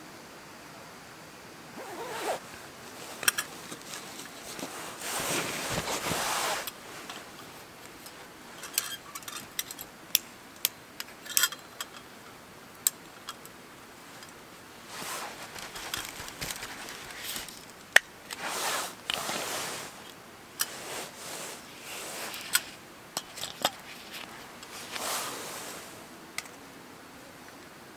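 Camp gear handled on a wooden slat table: several scraping, rustling bursts of about a second each, with sharp clicks and light knocks of metal parts in between, as a folding metal stand is set up.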